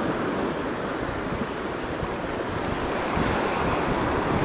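Rough sea surf washing and breaking over shore rocks, a steady rushing noise, with wind on the microphone.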